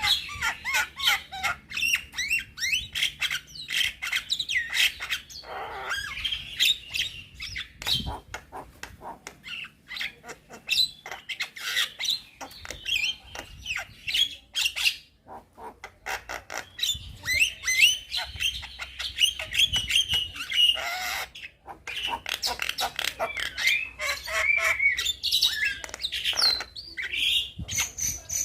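Young Javan myna (jalak kebo) singing continuously: a rapid, varied chatter of clicks, squawks and short whistled notes, with brief pauses.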